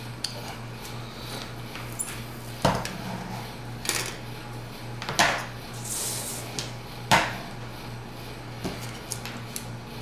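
Small hard electronic parts being handled and set down: a few sharp clicks and knocks, four louder ones a second or so apart, as a tablet's circuit board is lifted out of its metal-backed housing. A steady low hum runs underneath.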